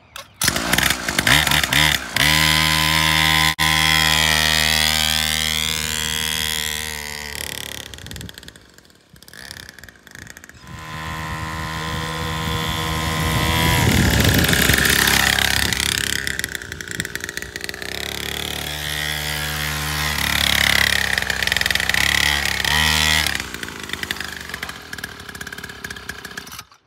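A 49cc two-stroke kids' pocket dirt bike engine starting and running under riding, its pitch rising and falling as the throttle is opened and closed. It drops low around eight to ten seconds in, picks up again, and falls away near the end.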